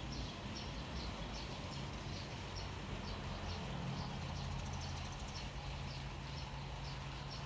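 Steady rain hiss with a low hum underneath, and a short high chirp repeating about two to three times a second.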